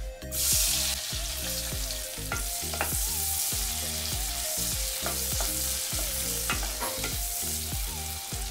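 Chopped onions dropped into hot oil and butter in a non-stick pan: a sudden burst of sizzling about half a second in, then steady frying sizzle, with a wooden spoon stirring and knocking against the pan.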